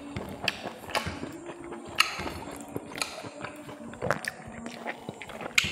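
Close-miked eating sounds: wet chewing and lip smacks as food is eaten by hand, with fingers scraping food across a ceramic plate. Irregular sharp clicks, a few a second.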